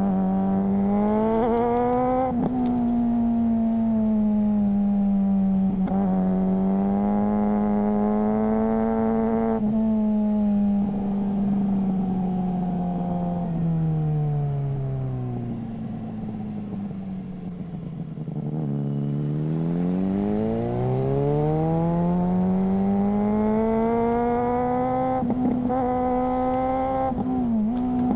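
Suzuki GSR600's inline-four through a GPR Ghost exhaust, accelerating through the gears with quick upshifts made on a quickshifter, each shift a brief break in the note. Around the middle the revs fall away as the bike slows, then climb again with more quick upshifts near the end.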